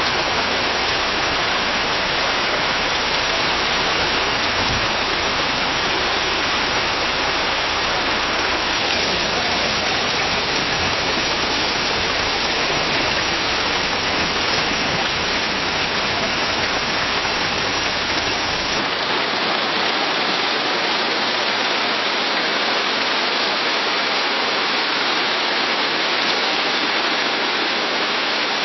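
Rain falling steadily in a forest, a dense, even hiss of drops. About 19 s in, the low rumble under it drops away as another rain recording takes over.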